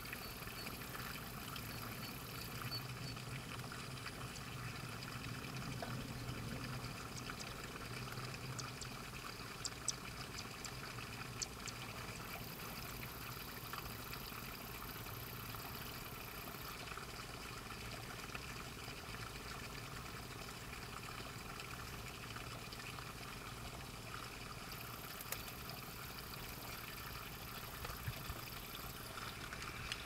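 Steady trickle of water running into shallow field water. A very high, thin whine comes and goes three times, a few seconds each time.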